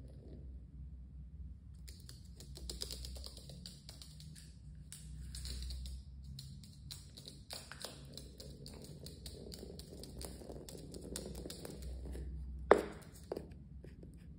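Scattered light clicks and taps of a small plastic pill bottle and a Jenday conure's feet and beak on a wooden floor as the bird pushes the bottle about. They start about two seconds in, with one sharp knock near the end.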